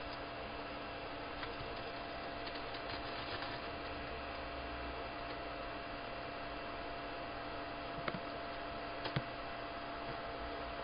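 Steady electrical hum over a faint hiss, with two short clicks about a second apart near the end.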